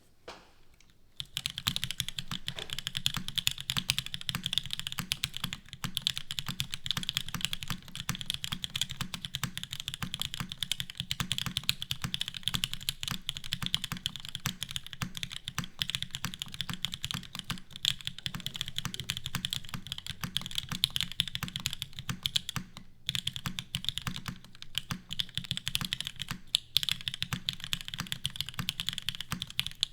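TGR Jane V2 mechanical keyboard with Gateron Ink switches on a carbon-fibre plate, typed on fast and continuously: a dense run of keystroke clacks starting about a second in, broken by a few brief pauses.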